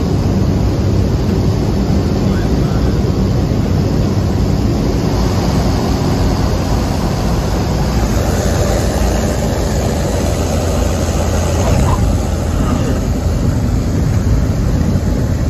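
Cessna 208 Caravan's Pratt & Whitney PT6A turboprop and propeller droning steadily, heard from inside the cabin during landing, with a low hum underneath.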